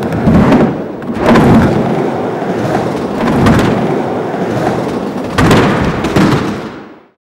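A deep, thunder-like rumble with several swelling thuds, about four of them, fading out shortly before the end.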